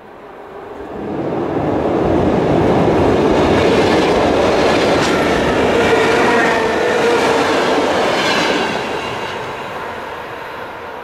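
ED9T suburban electric multiple unit passing close by as it crosses a steel truss railway bridge. The running noise of the wheels on the rails builds over the first two seconds, holds loud with a few sharp clacks, and eases off after about eight seconds.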